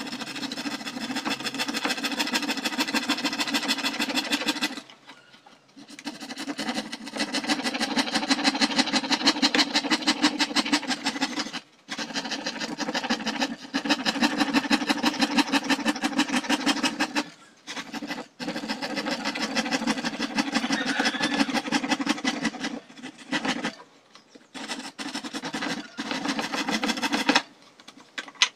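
Small scroll saw's reciprocating blade cutting thin PVC sheet with a rapid, buzzing rasp. It runs in stretches, stopping briefly several times as the piece is fed through.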